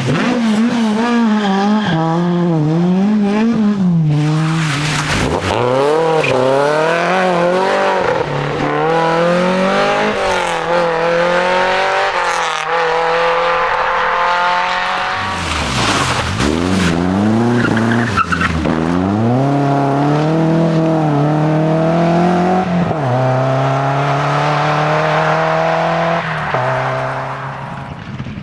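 Rally cars at full throttle, engines revving hard, their pitch climbing through each gear and dropping on shifts and lifts, with a deep dip and climb about halfway through.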